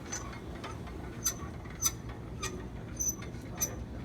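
Mousetrap-powered car's wheel bearings creaking as it rolls: a short, high squeak repeating evenly about every 0.6 s. The bearings are dry and want graphite.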